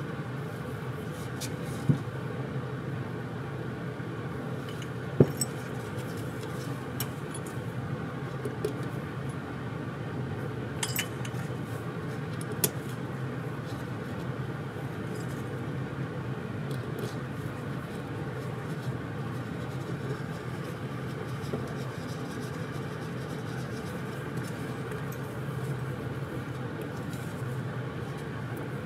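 Small metal carburetor parts on a Kymco scooter carburetor clicking and clinking now and then as they are handled and fitted together, the sharpest click about five seconds in, over a steady background hum.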